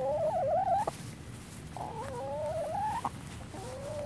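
Hen calling in long, wavering, pitched notes: one about a second long at the start, another just over a second long midway, and shorter calls near the end.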